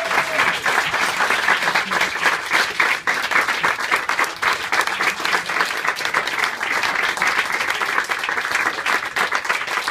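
An indoor audience applauding: many people clapping their hands, steady throughout.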